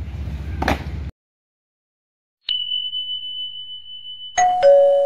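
Subscribe-button sound effect: a click followed by a steady high tone, then a two-note descending doorbell-style chime near the end. Before it, about a second of outdoor parade noise with one sharp knock, which cuts off suddenly.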